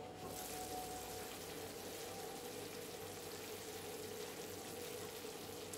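Chicken curry frying in a pan, a faint, even sizzling crackle that starts just after the beginning, over a steady faint hum.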